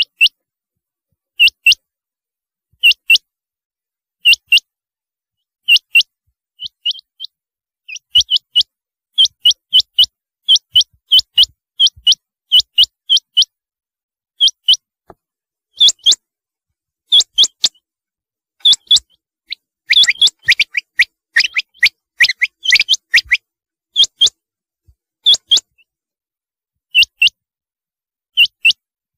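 Rain quail calling: short, high, metallic double notes repeated about every second and a half, coming quicker from about a third of the way in and crowding together and overlapping past the middle.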